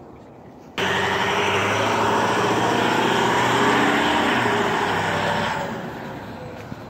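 A school bus driving past close by: engine and road noise that start abruptly about a second in, hold loud for several seconds, then fade as it moves away.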